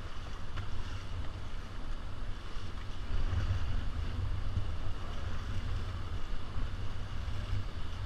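Wind buffeting the microphone over the steady rush of river water, the low rumble a little stronger around the middle.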